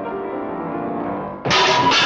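Instrumental music: held notes, then about one and a half seconds in a sudden loud, dense passage comes in and carries on.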